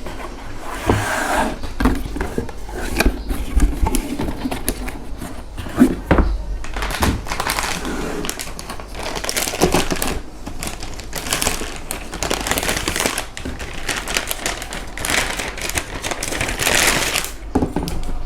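Plastic packaging crinkling, with irregular clicks and knocks of cardboard being handled, as a motherboard is unpacked from its box.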